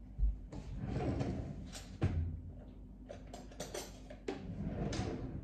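Someone rummaging off-camera for a tool: household knocks and clatter, with sharp knocks at the start and about two seconds in, rustling between, and a run of small clicks near the end.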